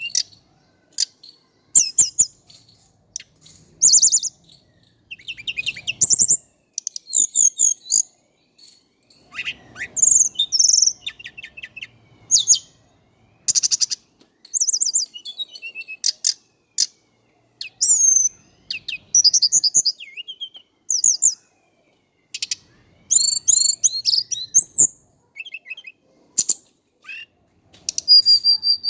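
Male tledekan gunung (sikatan cacing, the hill blue flycatcher) singing a lively varied song: rapid high chirps and twittering trills in short phrases separated by brief pauses.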